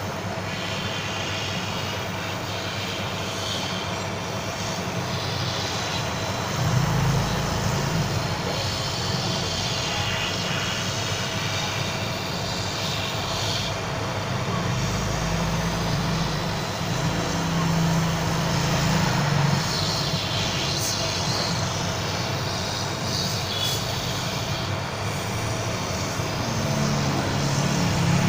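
Hot-air heat gun running steadily: its fan blows a constant rush of air over a low motor hum with a thin steady whine, heating the phone's display to soften the adhesive so the screen can be lifted off.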